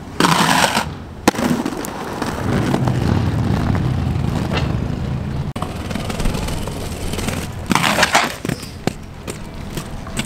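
Inline skates rolling on rough pavement, with two short scraping slides on a ledge, one right at the start and one about eight seconds in, and a sharp click just after the first.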